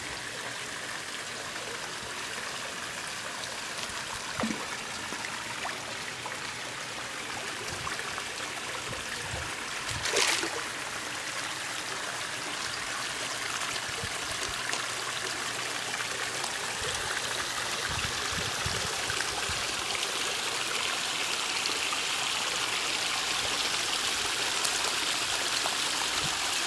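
Small rock waterfall spilling into a koi pond: a steady trickle and splash of falling water that grows louder toward the end. A brief knock about ten seconds in.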